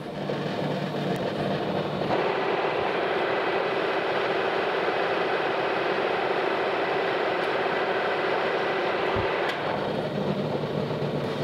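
Metal lathe running while a carbide-insert turning tool takes a light finishing pass on a metal shaft. The steady cutting noise, with a steady tone, sets in about two seconds in and eases off shortly before the end.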